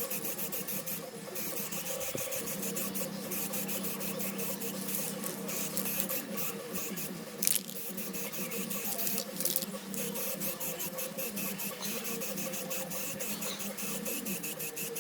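Aerosol rattle can of etch primer spraying in quick, uneven spurts of hiss.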